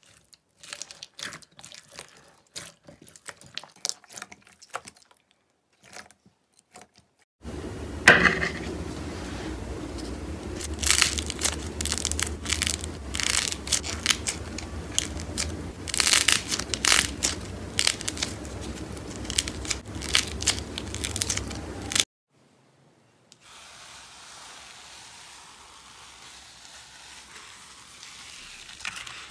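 Hands squishing and pulling slime, with sticky clicks and crackles. The clicks are sparse and faint at first, from clear slime with foam beads. From about seven seconds they grow loud and dense over a low steady hum as a soft squishy is pulled apart. Near the end there is a soft even hiss as a fluffy slime is stirred.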